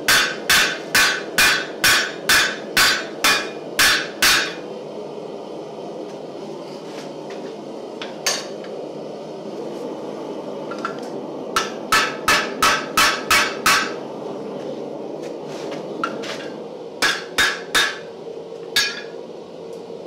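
Hand hammer striking a hot railroad spike on the anvil and bending jig. A run of about ten blows at a steady two to three a second, a lone blow, then another run of about eight and a last few near the end, over a steady low hum.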